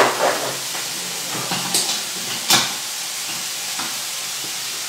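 Onions and garlic frying gently in olive oil in a frying pan, a steady sizzle, broken by a few sharp clinks and knocks of pans or utensils in the first half.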